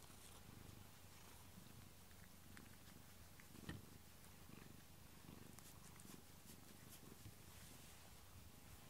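Domestic cat purring faintly and steadily while being stroked, with one brief soft click a little before halfway.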